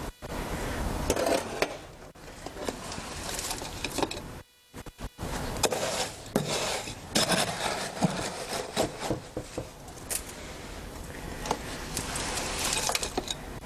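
Hand scoop scraping and digging through fresh concrete in a wheelbarrow, with knocks and rasping as scoopfuls are tipped into a metal slump cone. There is a short pause about four and a half seconds in.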